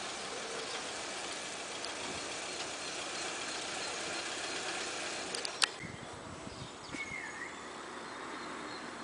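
A steady engine-like hum that drops away after a sharp click about five and a half seconds in. After that it is quieter, with one short high chirp near seven seconds.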